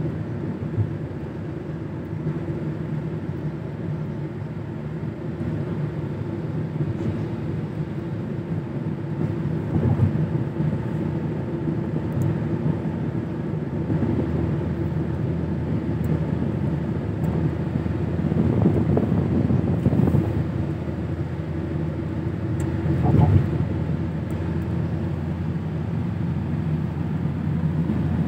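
Car driving on a wet road, heard from inside the cabin: a steady low drone of engine and tyre noise that slowly grows a little louder, with a few brief swells.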